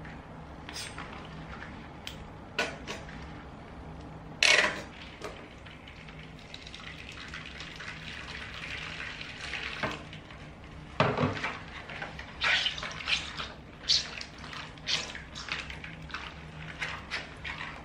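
Hot water poured in a steady stream into a glass bowl for about four seconds. Then a loud knock and a run of small clinks and taps as the glass bowl is handled.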